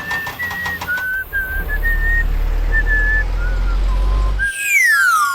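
Whistled tune of short, clear notes over a steady low rumble, ending in a loud downward slide-whistle glide.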